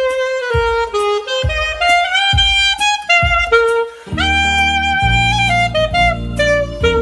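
Selmer Mark VI alto saxophone playing a flowing melodic line of changing notes, as a sound test of the horn after repair. Low bass notes run underneath: short repeated ones at first, then held notes from about four seconds in.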